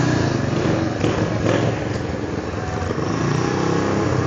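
Small single-cylinder engine of a racing lawn mower running hard, its pitch rising again about three seconds in.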